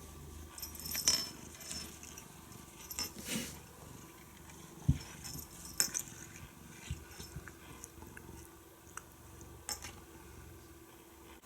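Cat sneezing: short hissing bursts about a second and three and a half seconds in. A dull thump comes near five seconds, with a few small clicks around it.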